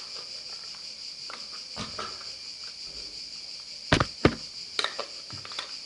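Objects being handled: a few light clicks and two sharp knocks close together about four seconds in, over a steady high-pitched hiss.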